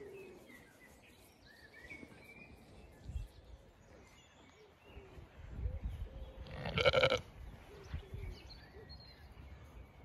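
A Zwartbles sheep bleats once, a short call about seven seconds in, while birds chirp in the background.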